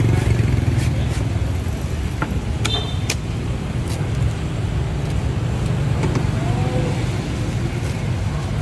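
Steady low rumble of street traffic, with a few sharp knocks as a cleaver strikes and shaves the husk of a green coconut.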